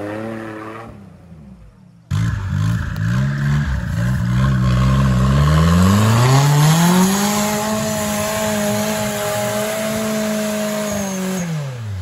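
Off-road vehicle's engine revving hard under load. The revs climb over a few seconds, are held high and steady, then drop off near the end. This is typical of a car straining to push through a deep rutted forest track.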